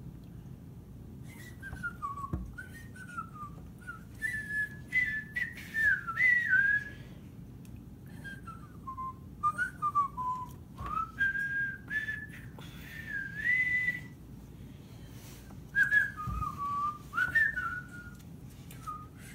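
A person whistling a tune in short phrases, a single clear wavering note line, with a few light knocks of a knife on a wooden cutting board as cheese is sliced.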